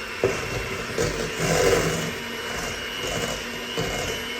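Electric hand mixer running steadily, its beaters whipping egg whites in a bowl, briefly louder about one and a half seconds in.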